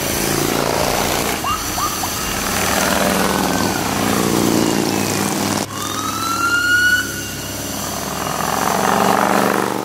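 Harley-Davidson touring motorcycles riding past on a road, engines running, with a siren-like tone rising in pitch about a second and a half in and again about six seconds in.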